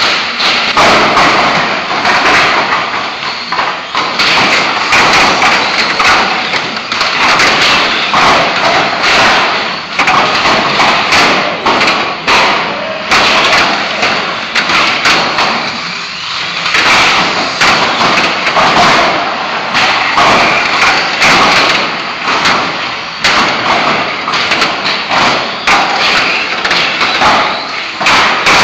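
A pack of radio-controlled stock cars racing on a concrete floor: motors and tyres running continuously, with frequent irregular knocks and bangs as the cars hit each other and the steel track edging.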